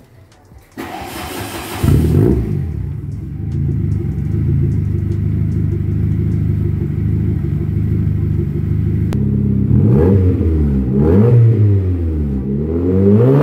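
Volkswagen Golf Mk2 GTI engine, newly wired to a Speeduino ECU, cranks on the starter for about a second, catches and settles into a steady idle, showing the new crank-signal wiring works. Near the end it is revved up and back down three times, heard at the twin-tip exhaust.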